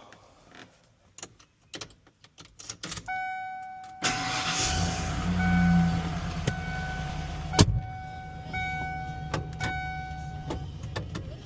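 Ford F-150 pickup being started. There are a few clicks first, then a warning chime sounds, and about four seconds in the engine cranks, catches and settles into a steady idle with the chime still dinging. A single sharp knock comes partway through.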